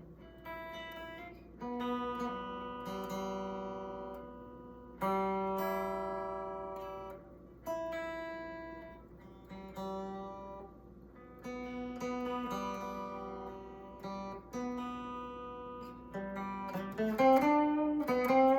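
Electric guitar being tuned: single strings and pairs of strings plucked and left to ring out, one after another, then a quicker run of notes near the end.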